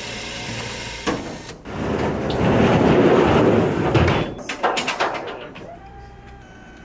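Rear lift ramp of a bus car-hauler conversion coming down onto the ground. There is a knock, then a loud rushing scrape for about two seconds, then a string of metal clanks. Near the end a motor starts with a steady whine.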